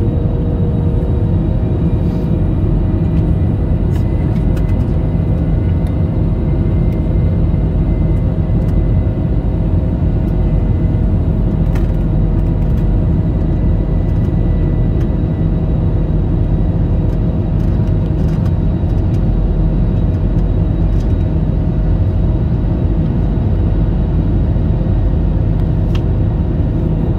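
Steady cabin noise inside an airliner on its landing approach: a low rumble of engines and rushing air, with a few faint steady whines over it.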